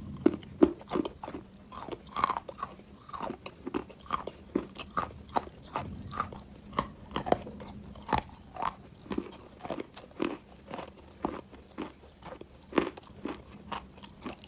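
Close-miked chewing of wet chalk soaked in clay water: a steady run of irregular wet crunches and bites, about two or three a second.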